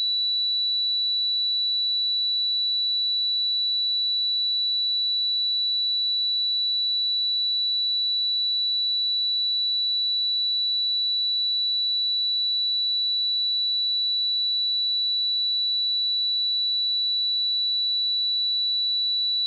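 A steady, pure 3947 Hz sine-wave test tone, held at one pitch and one level without a break: a high-pitched electronic whistle.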